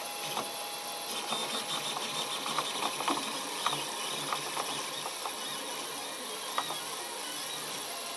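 Protomaker Black Sprint FDM 3D printer running a print: a steady hiss and hum with stepper-motor movement and irregular sharp clicks, most of them between about one and four seconds in.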